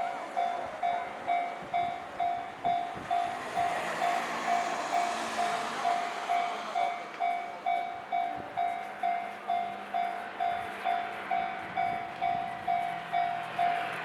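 Japanese railway level-crossing alarm ringing its steady two-tone-free 'kan-kan' at about two strikes a second, while an electric train passes through the crossing, its rush loudest about four to six seconds in.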